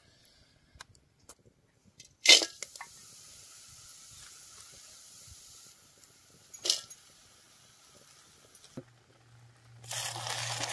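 A few light clicks and two sharp metal clinks of cooking utensils, the first the loudest sound here. Near the end, hot oil starts to sizzle as frying begins, over a low steady hum.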